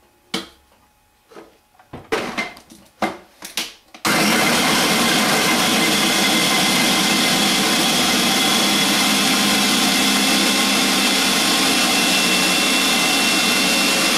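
Countertop food processor blending cheese: a few knocks and clatters, then about four seconds in the motor switches on and runs loud and steady, winding down at the very end.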